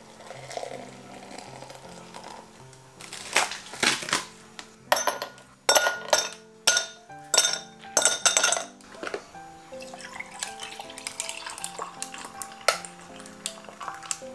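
Ice cubes dropped into a drinking glass, a series of sharp clinks and knocks between about three and nine seconds in, over background music. Near the end milk is poured over the ice with a soft pouring sound.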